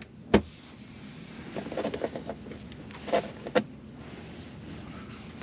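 Handling noises from the plastic trim on the back of a center console being worked loose by hand. A sharp click comes right at the start. Rustling and small clicks follow, and then two more sharp clicks a little past three seconds in.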